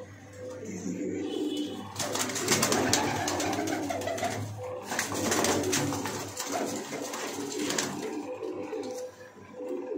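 Domestic pigeons cooing in a small loft. From about two seconds in until about eight seconds, a loud fluttering rustle of flapping wings covers the cooing.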